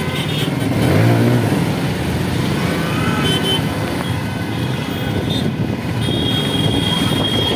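Many motorcycle and scooter engines running as riders pass close by in a stream of road traffic. A high steady tone sounds over them for the last second and a half.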